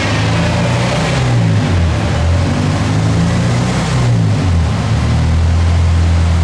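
Honda four-cylinder engine and the chassis dyno rollers winding down after a full-throttle pull. The engine's low note wavers up and down as everything slows, then settles into a steady drone about four and a half seconds in.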